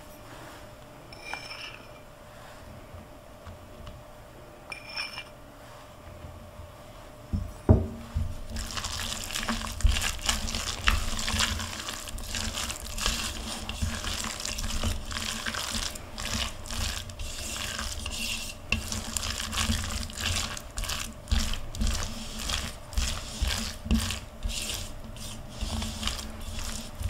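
Spatula stirring and mashing a moist salmon patty mixture in a mixing bowl, working flour in as the mix turns pasty. The first few seconds are quiet apart from two faint clinks; about eight seconds in there is a knock, and then steady, quick scraping and squishing strokes.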